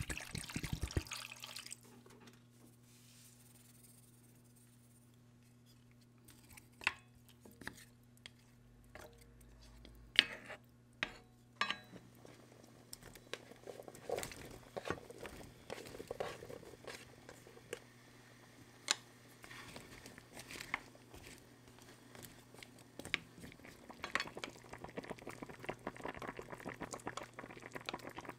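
Kitchen cooking sounds at a frying pan of chicken pieces. Water is poured in from a bottle at the start, followed by scattered clinks and knocks of utensils and cookware and chopped carrot and potato dropping into the liquid. Near the end comes a thickening bubbling as the broth comes up to the boil, over a faint steady hum.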